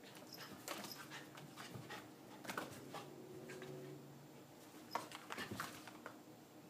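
Pembroke Welsh Corgi play-fighting with a cat: bursts of scuffling from paws and bodies, mixed with the dog's breathing and small vocal sounds. A low held note comes about three seconds in.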